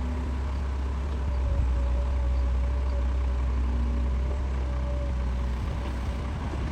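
Heavy construction machine's engine running steadily with a deep low rumble, a faint steady whine above it.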